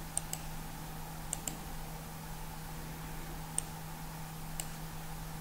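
Computer mouse clicking: a few sharp clicks, two quick pairs in the first second and a half and two single clicks later, over a steady low hum.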